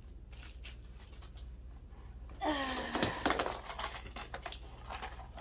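Rustling and small clicks and clinks of items being handled in a cardboard box of scrap, with a sharp clink about three seconds in. A woman's voice sings a short note about halfway through.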